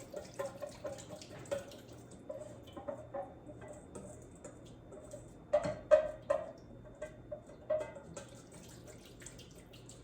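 Whisk clicking and scraping against the side of a bowl as it beats a small amount of wet dressing base, a run of light irregular taps with a few louder knocks about halfway through.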